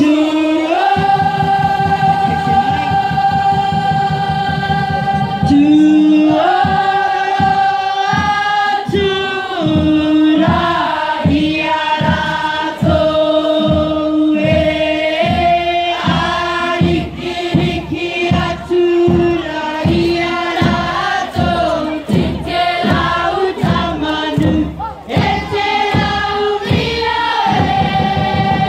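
A group of children singing together in long held notes. From about six seconds in, a steady beat of about two strokes a second runs under the singing.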